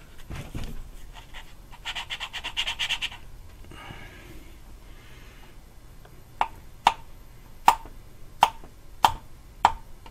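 An exhaust valve being lapped into its seat with lapping compound: first a rapid gritty rasp as the suction-cup lapping stick is spun back and forth between the palms, grinding the valve face against the seat. Then, from about six seconds in, sharp metallic taps with a brief ring, about one every two-thirds of a second, as the valve is lifted and tapped back onto its seat to recentre the compound.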